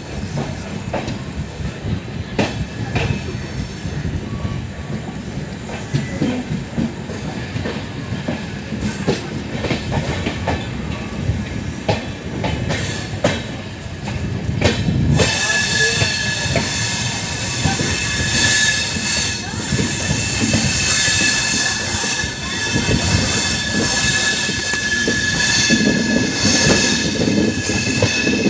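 Indian Railways sleeper coach rolling along the track, heard from an open coach doorway: a rumble with scattered clicks of the wheels over rail joints. About halfway through, a steady high-pitched wheel squeal sets in and holds as the coaches take a curve.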